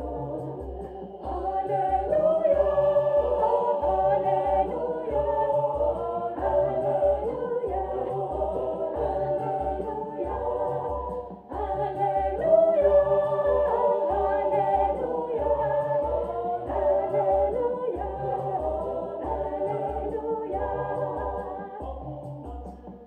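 Gospel choir singing with a steady low beat underneath. The music dips briefly about halfway through, then carries on.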